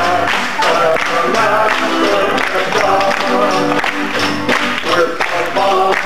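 A small church group singing a gospel praise song together to guitar and keyboard accompaniment, with the congregation clapping along.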